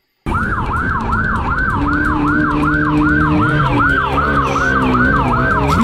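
Police siren in yelp mode, sweeping down and up about three times a second, cutting in suddenly just after the start, with a vehicle engine running underneath.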